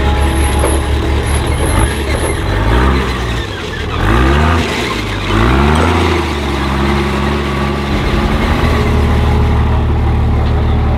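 Engine of an articulated tracked amphibious carrier running as the vehicle drives. A few seconds in, the revs rise and drop back several times in a row, then the engine settles to a steady drone.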